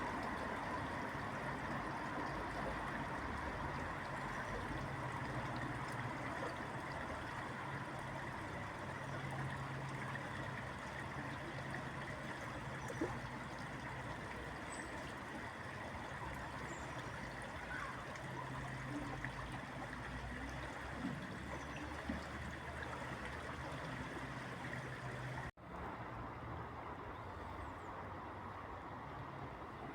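Steady rush of flowing water with a low hum of city traffic underneath. The sound drops out sharply for a moment about 25 seconds in.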